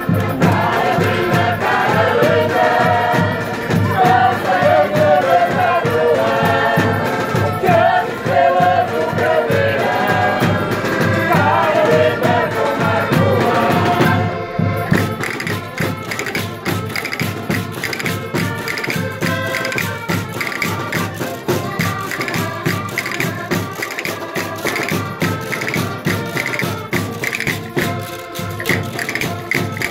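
Portuguese rusga folk group singing together in chorus over a steady beat of bass and snare drums. About fourteen seconds in it cuts abruptly to a busier passage of drums and small percussion such as tambourine, with higher sustained melody above it.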